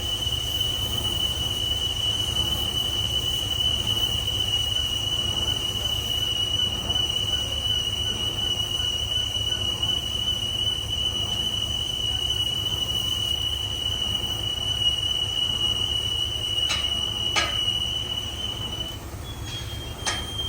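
Heavy boring machine cutting a steel pipe: a steady high-pitched metallic squeal over a constant low machine hum. The squeal breaks off briefly near the end and returns a little higher, with a few sharp clicks.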